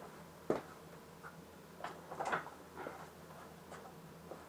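A few light, separate clicks and knocks of things being handled in a small room, over a faint steady hum.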